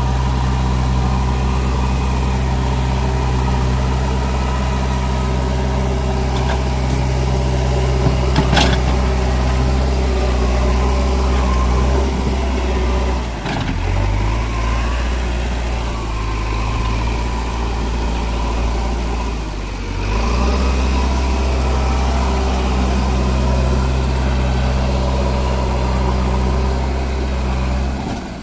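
Backhoe loader's diesel engine running steadily, with a sharp knock about eight seconds in. The engine note shifts for several seconds in the middle, then settles back.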